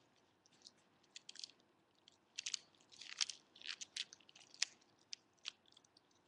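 Small dog gnawing and chewing on a knotted chew bone: faint, irregular clicks and crunches, sparse for the first two seconds and coming thickest in the middle.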